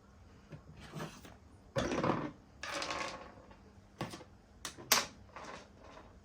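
Equipment being handled: a few short rustling or hissing bursts, the loudest about two seconds in, then several sharp clicks and knocks, the loudest about five seconds in.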